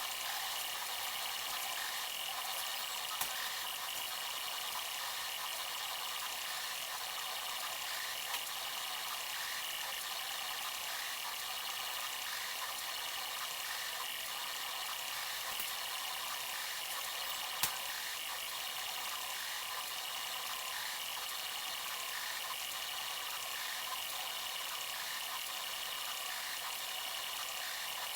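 Bambu Lab 3D printer running a print: a steady mechanical whir of fans and motors with a few faint clicks.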